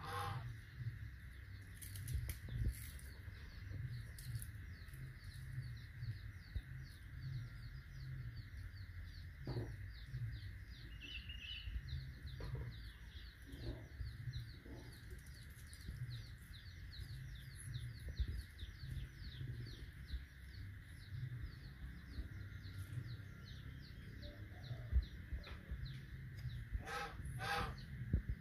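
Birds chirping in a quick, steady run of short falling notes over a faint steady hum and a low rumble, with two short loud calls near the end.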